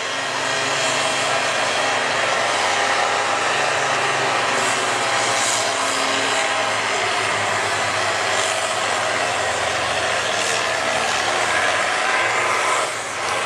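International 1066 tractor's diesel engine running hard under full load during a tractor pull, holding a steady pitch. It eases off shortly before the end.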